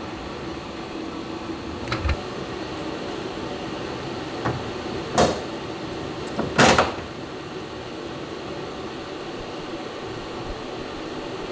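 Brief handling noises of hands working on a car's body panels: a small double click about two seconds in, then a few short sharp knocks or rasps around the middle, the last of them the loudest, over a steady low hum.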